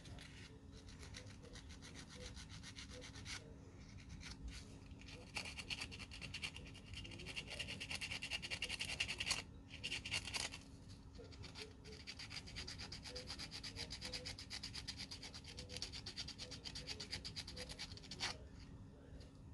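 Sandpaper rubbing quickly back and forth on tiny scale-model mirror parts as they are shaped by hand, in long runs of rapid strokes. It pauses briefly about three seconds in and again around the middle, then stops near the end.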